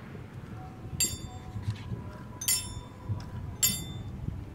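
Three sharp metallic clinks, each ringing briefly with a bright tone, spaced about a second and a half apart and starting about a second in. A faint steady tone runs under the first two.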